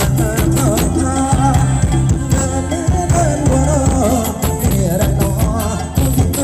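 Live Thai ramwong band music: a singer's ornamented, wavering melody over bass and a steady drum beat.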